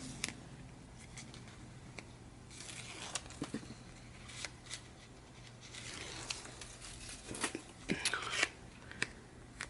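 Double-sided tape and paper being worked by hand: scattered short snips, tearing and crinkling sounds, clustered about three seconds in and again near the end.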